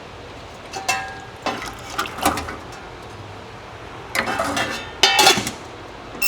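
Small metal carburetor parts clinking against each other and against metal as they are set into an ultrasonic cleaner, in four short bursts of clinks. A short beep comes at the very end.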